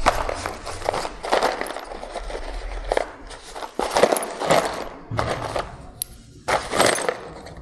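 Handling noise close to a clip-on microphone: a run of short rustles and light scrapes and clatters, about one or two a second, as things are moved about on a desk.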